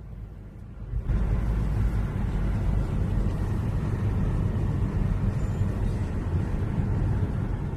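Engine running steadily with a low rumble, stepping up in level about a second in.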